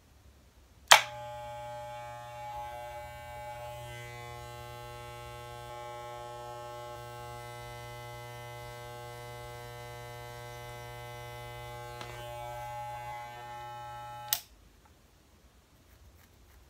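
Wahl electric hair clippers with a 1-inch guard switched on with a click about a second in, running with a steady buzz for about thirteen seconds, then clicked off.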